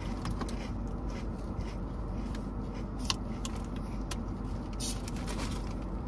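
Steady low hum inside a car cabin, with scattered small clicks and crinkles from snack eating and a plastic water bottle's cap being twisted open; the sharpest click comes about three seconds in.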